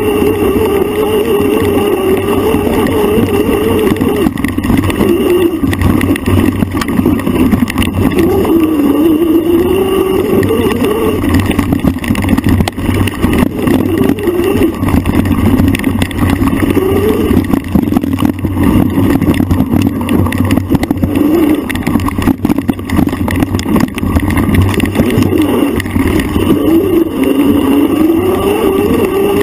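A bike's motor running under load, its pitch rising and falling over and over as the bike speeds up and slows along a rough trail, with constant knocks and rattles from the ride.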